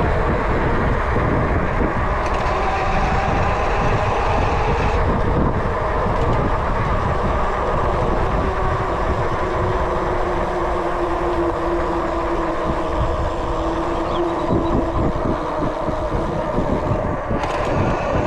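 Fat-tire mountain bike rolling along, a steady rumble of tyres and riding noise with a faint hum in the middle.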